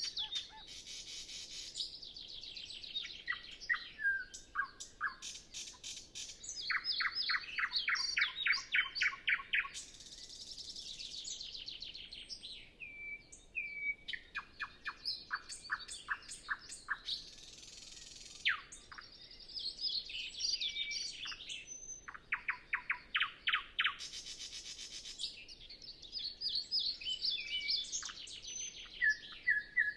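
Nightingale singing a run of varied phrases, each a few seconds long, with short pauses between. The phrases mix rapid series of repeated notes, buzzy trills and clear whistles.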